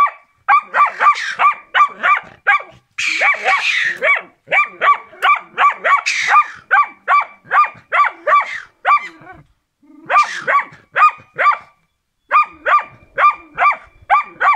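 A Karelian Bear Dog barking rapidly and persistently, about three sharp barks a second with two brief pauses, baying at caged game as a hunting dog does to hold quarry.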